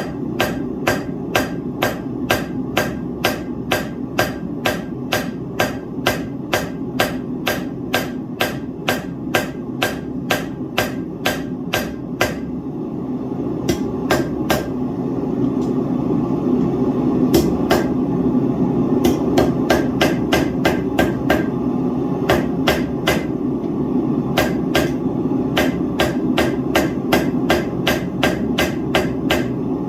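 Blacksmith's hammer striking hot steel on an anvil at a steady pace of about two to three ringing blows a second. The blows stop briefly about halfway through, come sparsely for a few seconds, then pick up the steady pace again. A steady low rushing noise runs underneath.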